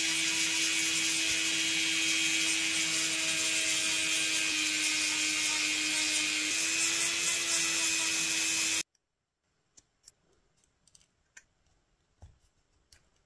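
A small handheld power tool running at a steady pitch for about nine seconds, then cut off suddenly. Faint light clicks and scratches follow.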